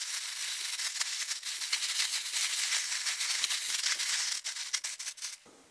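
Plastic roasting bag filled with chopped vegetables, cream and herbs being shaken and squeezed by hand to mix it: the film crinkles and rustles while the vegetable pieces rattle inside. The noise stops suddenly near the end.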